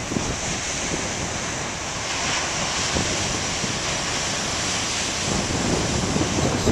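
Ocean surf: large waves breaking and washing in, with wind buffeting the microphone. The rush grows a little louder near the end.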